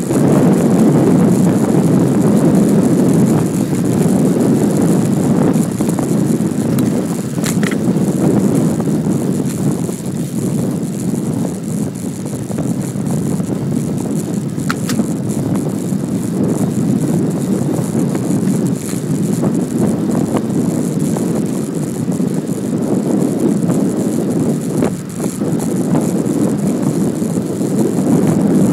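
Steady rushing noise of a Brompton folding bicycle riding along a paved road: wind on the microphone mixed with tyre noise, with a few faint clicks.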